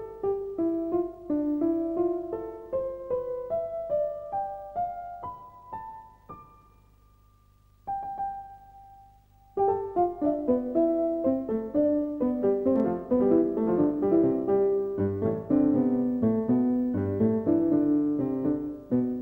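Piano music: a rising run of notes that fades almost to nothing, a single held note, then fuller, livelier playing from about ten seconds in, with deeper bass notes joining later.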